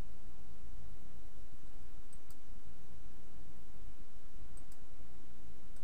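A few faint computer mouse clicks, a pair about two seconds in and another pair about two and a half seconds later, over a steady low background hum.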